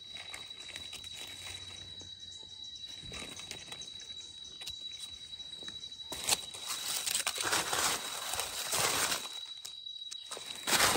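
Dry fallen leaves rustling and crunching as they are handled and brushed through, mostly in bursts in the second half after a quiet start. A thin steady high tone runs underneath.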